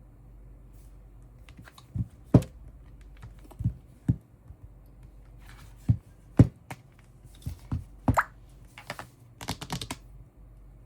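Irregular taps, clicks and dull knocks, about a dozen spread unevenly, the loudest a few sharp thumps, with a quick run of light clicks near the end.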